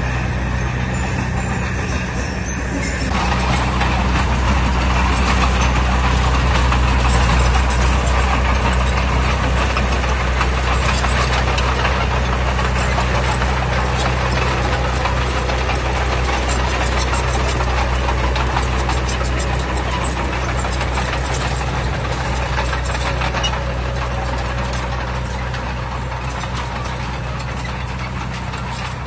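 Diesel engine of a Komatsu D20P bulldozer running steadily under load. About three seconds in, a dense rattling clatter joins it and carries on to the end, easing slightly near the close.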